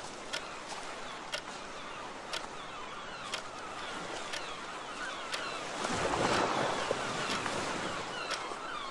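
A clock ticking about once a second over the wash of sea waves with seagull calls. A wave surges loudest about six seconds in.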